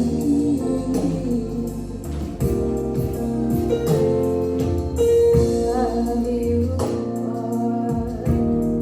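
Gospel choir singing held notes with live band accompaniment, with drum hits marking the beat.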